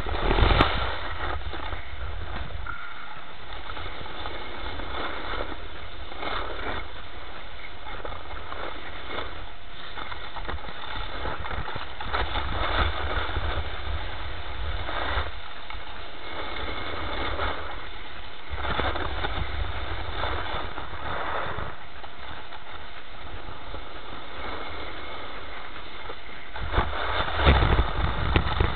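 Wind buffeting the microphone on a moving downhill run, with the scrape of edges over packed snow swelling every few seconds as turns are made. The sound is loudest near the end.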